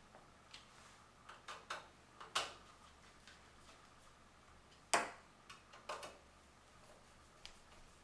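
Screwdriver tightening the screws that fasten a power supply into a computer case: scattered light clicks and ticks, the two loudest about two and a half seconds and five seconds in.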